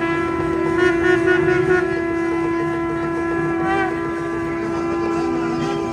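Nadaswaram double-reed pipes: one pipe holds a steady drone note while another plays an ornamented melody above it.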